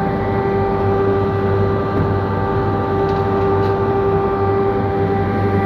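Old Wadkin four-sided planer-moulder running with its cutter heads and feed motor switched on, a steady multi-tone whine over a low hum.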